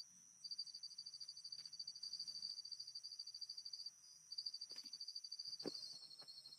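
Insects in the forest trilling: a fast, even, high-pitched pulsing with steady high whines above it, pausing briefly twice. A few faint knocks come in the second half.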